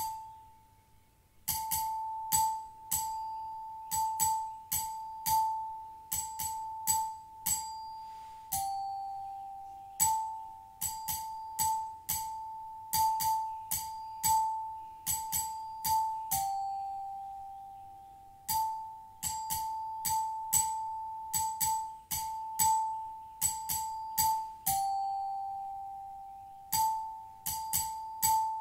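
Small high-pitched Tibetan singing bowls struck over and over with a hard striker at an uneven, quick pace, each strike ringing on. A second, slightly lower bowl tone comes in at a few points.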